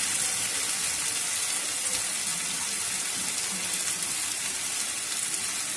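Chunks of potato in spice paste and oil sizzling steadily in a non-stick kadai as they are fried down (kashano), giving an even hiss.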